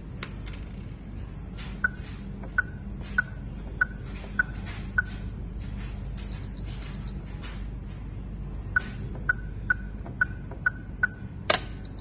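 Access-control keypad beeping at each key press as a six-digit code is entered, then a short run of higher pulsed beeps, then a second six-digit code keyed in. About eleven and a half seconds in, the electric rim lock's solenoid releases with one loud clack, unlocking the door.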